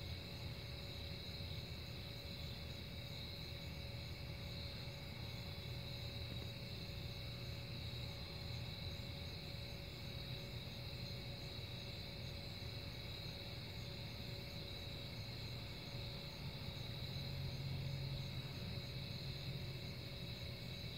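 Night insects chirring steadily in a continuous high, faint chorus, over a low rumble that swells slightly late on.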